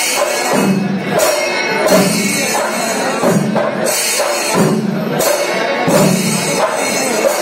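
Kerala temple percussion ensemble (melam) playing: drums with hand cymbals clashing in a steady repeating cycle about every second and a quarter.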